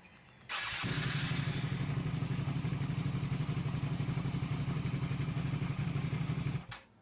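Motorcycle engine started by a remote starter. After a couple of faint clicks, the starter cranks briefly and the engine catches about a second in. It idles with a fast, even pulse, then cuts off suddenly near the end.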